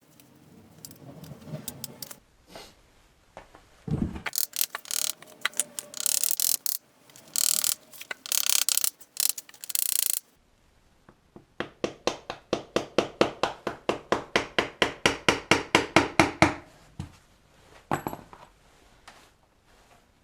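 Ratchet wrench being worked. Irregular bursts of clicking come first, then a steady run of rapid clicks at about five a second lasting about five seconds, then a few separate knocks.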